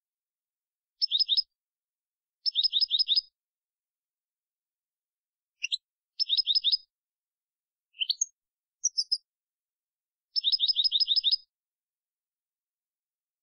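European goldfinch singing in the pure 'limpio' style. It gives four short bursts of quickly repeated high notes, with a few single rising notes between them and clean silence between phrases.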